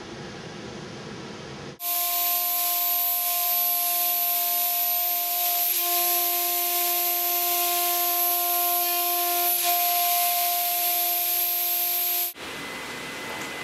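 A CNC router spindle cutting small parts out of aluminum sheet on a vacuum hold-down table. It makes a steady whine of three even tones over a loud, high hiss, with slight shifts every few seconds. The machine sound starts and stops abruptly, with a quieter machine hum before it.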